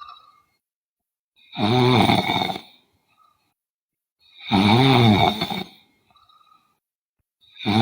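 A woman snoring in her sleep: three long, loud snores about three seconds apart, each a pitched rasp that rises and falls, the third starting near the end.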